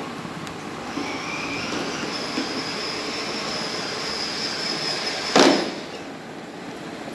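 A battery-powered ride-on toy car's electric drive motors whine steadily as its wheels roll over a hard floor. There is one sharp knock about five seconds in, after which the running sound drops away.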